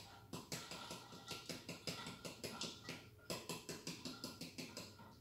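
Metal canister of icing sugar shaken in quick strokes over a bowl: a run of light knocks, about five or six a second, with a short pause about three seconds in.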